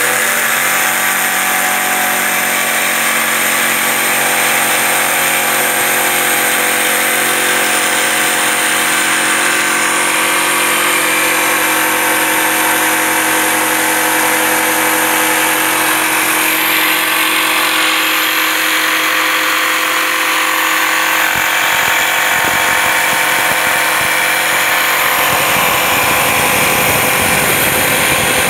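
Hitachi electric jigsaw running and cutting through plywood: a steady motor whine over the rasp of the reciprocating blade, with a rougher low rumble joining in over the last several seconds.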